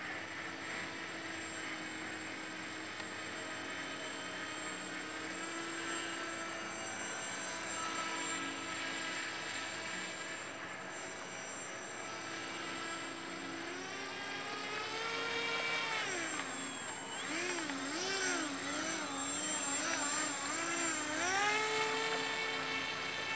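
Radio-controlled hydroplane boat's motor whining as it runs on the water. The pitch holds fairly steady at first, climbs with throttle about two-thirds of the way in, then swings up and down several times before rising and holding again near the end.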